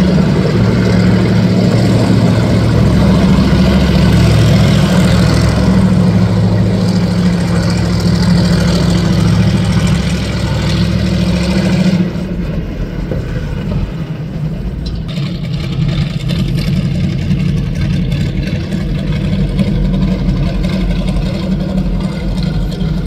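Car engine running with a loud, steady low drone. About twelve seconds in it turns quieter and duller.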